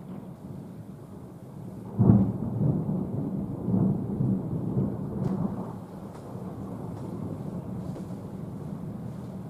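Thunder: a sudden clap about two seconds in, rolling on in several low rumbling swells and dying down after about six seconds to a quieter, steady rumble.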